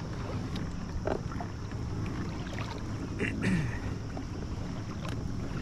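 Wind buffeting the microphone and water lapping around a kayak, with scattered light clicks and taps and one brief higher-pitched sound a little past the middle.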